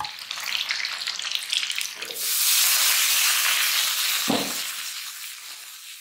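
Food frying in hot oil: a steady sizzling hiss that swells about two seconds in, holds, then slowly fades.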